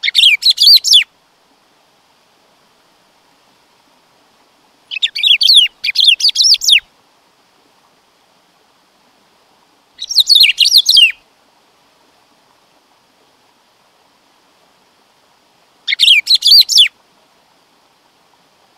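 Black-throated saltator (bico-de-pimenta) singing: four short phrases of quick, high notes, about five seconds apart, each lasting a second or so.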